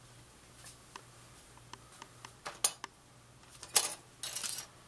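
Plastic model-kit parts being handled on a workbench: scattered light clicks, one sharper click about halfway through, and two short rustling scrapes near the end.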